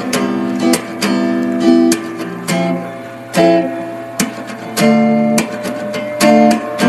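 Background music: a guitar strumming and plucking chords.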